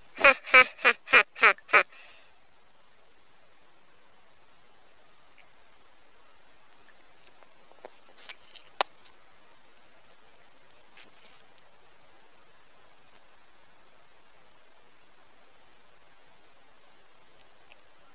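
A steady, high-pitched, insect-like chirring runs as background ambience throughout. In the first two seconds, a quick run of six short voice-like sounds stands out above it, louder than anything else.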